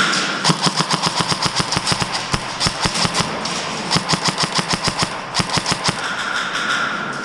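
Airsoft gun firing on full auto: several bursts of rapid sharp shots, roughly eight a second, stopping about six seconds in.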